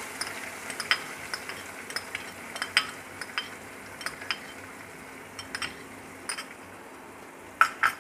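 Chopped onion frying in hot mustard oil in a non-stick kadai: a steady sizzling hiss with frequent small pops and crackles, and two louder sharp clicks near the end.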